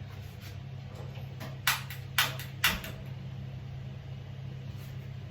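Three sharp clicks about half a second apart from a stove being switched on to boil a pot of water, over a steady low hum.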